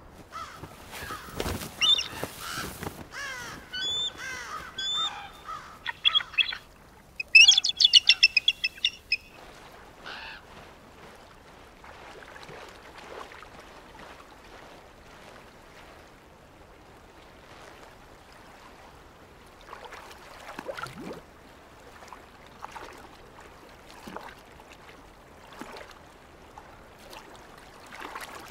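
Bald eagle calling: a few high, wavering squeals, then a loud, fast run of about a dozen piping notes, roughly six a second, that stops after about two seconds. After that there are only faint, scattered sounds.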